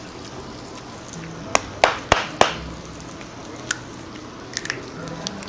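Sharp clicks and knocks of a glass soju bottle being handled: four strong ones about one and a half to two and a half seconds in. Lighter ticks follow near the end as its metal screw cap is twisted open. A steady hiss runs underneath.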